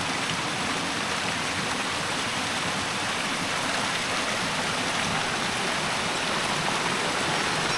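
Waterfall water rushing in a steady, even roar of falling and running water.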